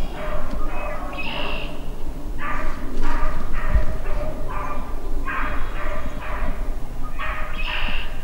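Hunting beagles baying while running a rabbit: strings of short, high, pitched barks coming in runs of several, with brief gaps between the runs. The baying is the sign that the dogs are on the rabbit's scent.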